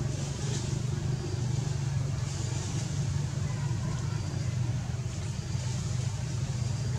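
An engine running steadily with a low, even hum and no revving.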